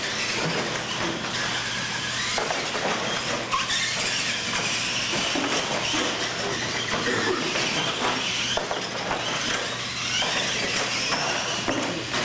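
Electric motors and gearboxes of two R/C monster trucks whining as they race, the pitch rising and falling again and again with the throttle, with a few knocks from the trucks hitting the ramps and floor.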